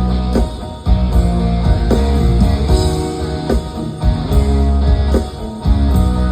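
Live band playing an instrumental passage: guitar over a heavy bass line and drums.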